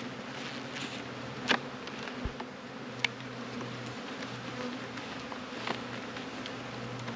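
Honey bees humming around an open hive, a steady low buzz, with a couple of sharp clicks about one and a half and three seconds in.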